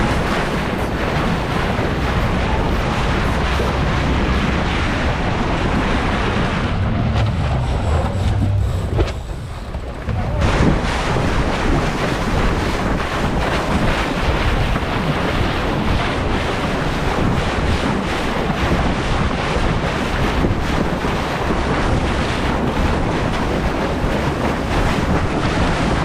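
Wind buffeting the microphone over water rushing and splashing along a Melges 24 sailboat's hull as it sails fast, with a brief quieter spell about eight seconds in.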